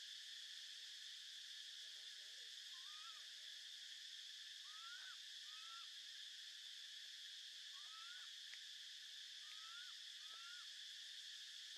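Steady, faint high-pitched drone of insects, with about seven short whistled calls that rise and then level off, scattered through it.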